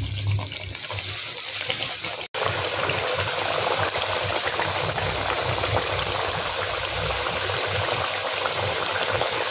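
Chicken karahi sauce with yogurt stirred in, bubbling and sizzling in a black karahi wok: a steady crackling hiss. A brief break about two seconds in, after which the sizzling is louder.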